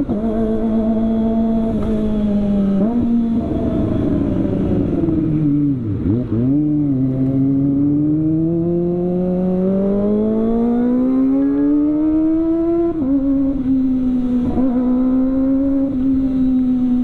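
Kawasaki ZX-25R's 250 cc inline-four with an aftermarket CLD exhaust, running at high steady revs. The pitch drops in steps and sinks as the bike slows around six seconds in, then climbs steadily as it accelerates. It drops sharply again at a gear change about thirteen seconds in and settles to steady revs.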